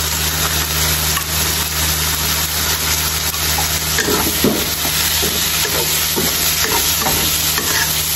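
Squid pieces sizzling in a hot wok as they stir-fry, with a wooden spatula scraping and turning them in short strokes from about halfway through.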